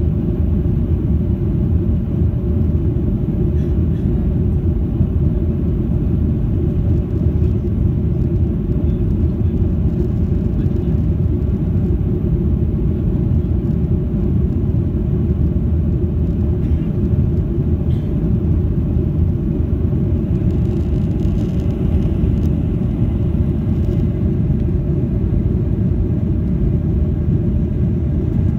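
Steady low rumble of jet engines and rushing air heard inside an airliner's cabin during the climb after takeoff.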